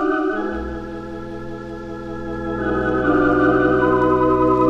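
Organ music: sustained chords over a deep bass note that comes in about half a second in, with the chord changing and swelling louder about three seconds in.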